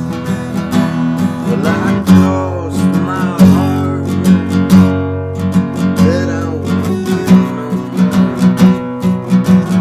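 Acoustic guitar strumming a steady rhythm of chords, with a melody line sliding up and down in pitch over it.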